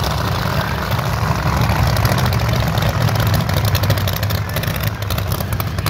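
Drag racing car engine idling with a loud, choppy low rumble and rapid crackle.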